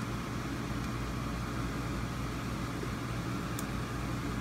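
Steady low mechanical hum and hiss of a running machine, with a faint small click about three and a half seconds in.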